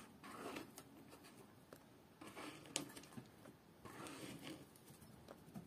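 Near silence with three faint soft rustles and one light click: vegetables in brine being handled in a plastic container.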